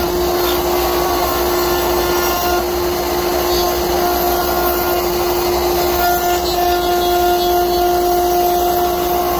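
Overhead router running at speed, a steady whine from the spindle over the noise of the bit cutting wood as a picket blank on a template is fed by hand under it.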